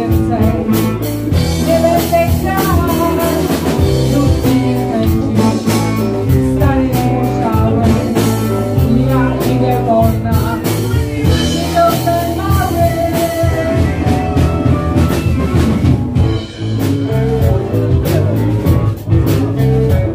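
Live blues band playing: a woman singing over electric guitars and a drum kit.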